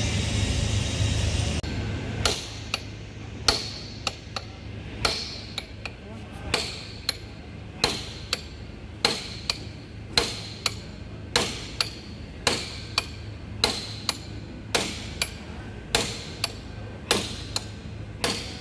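Hammer striking metal over and over, about two blows a second, often in pairs, each with a short ringing tail. A steady rumble cuts off just under two seconds in, before the blows begin.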